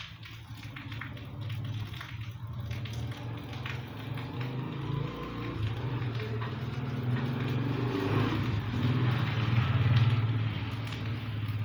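A motor vehicle engine's low hum that grows slowly louder, peaks about ten seconds in, then eases off.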